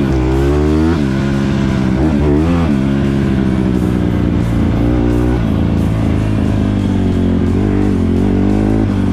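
Honda CRF150R four-stroke single-cylinder dirt bike engine revving up and dropping back several times in the first few seconds as the rider works the throttle and gears, then running steadier on the trail. Background music plays underneath.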